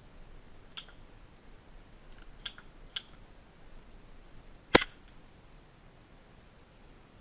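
Sharp airsoft shots: three faint cracks in the first three seconds, then one loud crack about four and a half seconds in.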